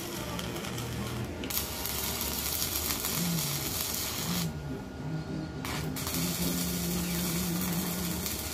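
Stick (arc) welding on steel bars: the arc crackles and hisses steadily, in three runs broken by short pauses about one and a half seconds and four and a half seconds in.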